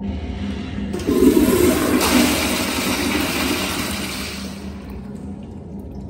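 American Standard Afwall wall-hung toilet flushing. A sudden loud rush of water starts about a second in, stays strong for a couple of seconds, and fades away over the next few seconds.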